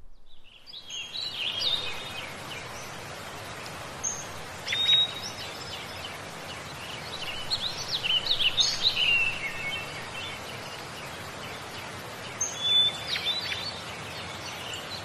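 Songbirds chirping and singing in scattered bursts of short, quick high notes over a steady background hiss.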